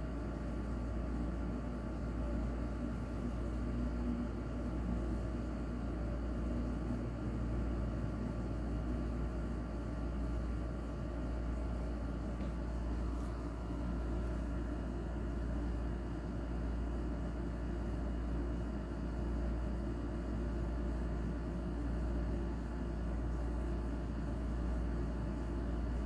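Steady low rumble with a faint, even hum; no distinct events.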